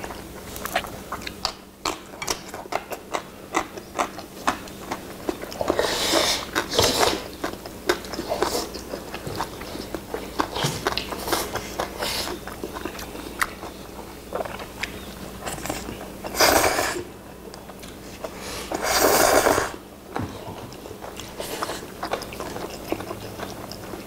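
Close-up chewing and slurping of black bean sauce noodles by two people eating, with many small wet mouth clicks and several loud slurps of noodles, about six seconds in and twice more near the end.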